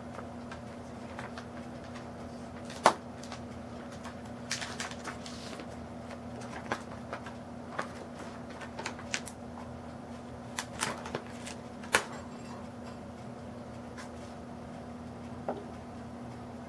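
Scattered light clicks and taps of the Lenovo IdeaPad Z570's plastic screen parts being handled as the LCD panel is worked into its frame, with two sharper knocks about three and twelve seconds in, over a steady low hum.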